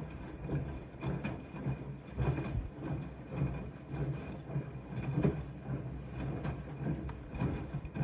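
Siemens iQ300 front-loading washing machine tumbling a wash load in the wash phase of an easy-care 40 °C cycle: wet laundry and soapy water slosh and drop in the turning drum, about one or two swishes and soft thumps a second.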